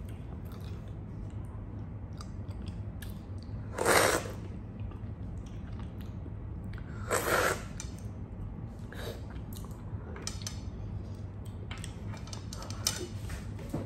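Close-up mouth sounds of someone eating a peeled banana straight off a plate without hands: soft chewing and lip smacks. Two louder, short noisy rushes come about four and seven seconds in.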